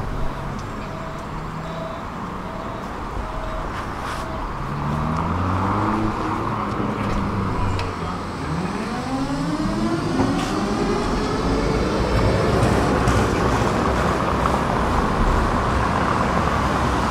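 Electric tram pulling away from the stop. Its traction motors whine, first in short stepped tones and then in tones that rise in pitch as it gathers speed, over steady road-traffic noise.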